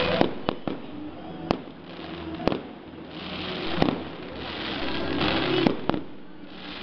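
Aerial fireworks going off: sharp bangs at irregular intervals, about one a second, with spells of crackling from sparkling shells between them.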